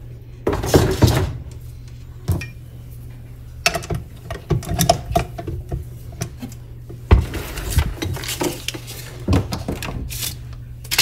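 Scattered clinks and clanks of kitchen utensils being handled: a metal spoon and measuring cup set down on a wooden countertop, then the flat paddle beater fitted onto a tilt-head stand mixer and the head lowered onto its stainless steel bowl. Separate knocks, a few of them sharper, over a faint steady low hum.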